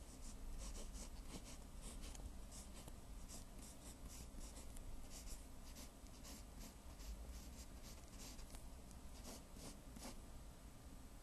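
Faint drawing strokes on paper: many short, irregular scratches, some quick runs of strokes, over a low steady hum.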